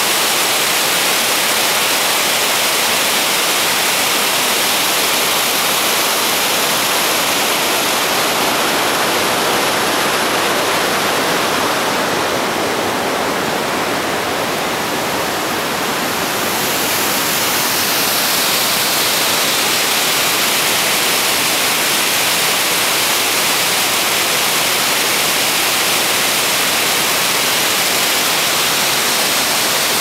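Probiy waterfall on the Prut River: white water rushing over and between boulders in a loud, steady noise. It turns a little quieter and duller for a few seconds near the middle, then comes back.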